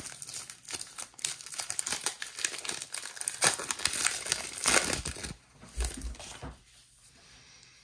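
Plastic trading-card pack wrapper crinkling and tearing as it is ripped open, a dense crackle that dies away after about five seconds.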